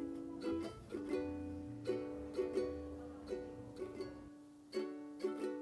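Background music led by plucked strings, with repeated picked notes over a soft bass line.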